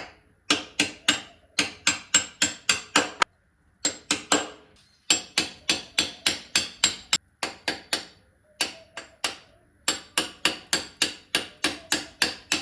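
Rapid, evenly spaced hammer taps on metal, about four a second, in runs of a few seconds broken by short pauses, each strike ringing briefly.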